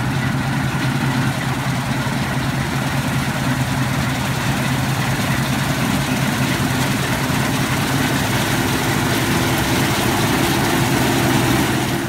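Claas combine harvester running steadily as it cuts a standing cereal crop, its engine and threshing machinery making a continuous drone with a strong low hum.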